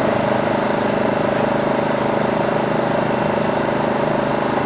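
Craftsman 3000i inverter generator's engine running steadily under the load of a small window air conditioner, which runs along with it: an even hum with constant tones that neither rises nor falls.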